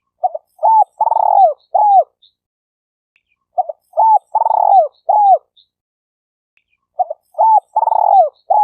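Spotted dove (tekukur) cooing: three matching phrases about three and a half seconds apart. Each phrase is a couple of short coos, then a longer rolling coo and a final falling coo.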